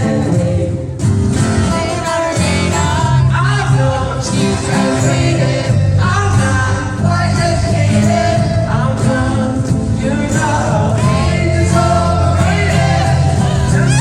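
Pop-rock band playing live with singing over the instruments.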